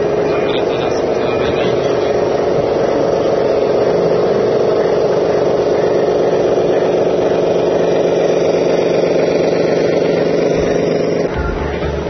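Radio-controlled Scania eight-wheel tipper truck model driving slowly, giving a loud, steady engine-like drone. Near the end the drone stops abruptly and a lower hum takes its place.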